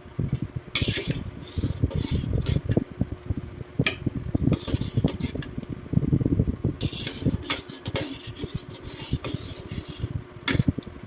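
Kitchen utensils and cookware clattering: a busy run of irregular knocks and clicks, with a few short scrapes.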